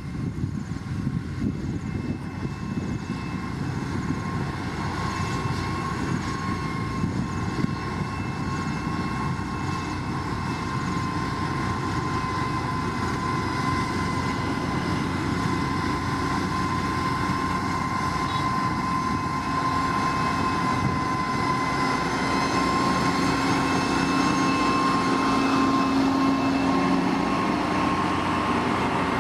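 Heavy diesel construction machines, a motor grader and a road roller, running steadily while working crushed gravel: a continuous engine drone with a steady high whine over it, growing slightly louder in the second half.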